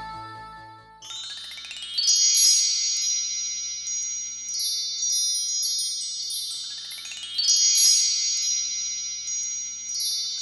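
Shimmering high chime sound like a wind chime: a rising sweep of bell-like tones about a second in that rings on, then repeats about six seconds later. Backing music fades out in the first second.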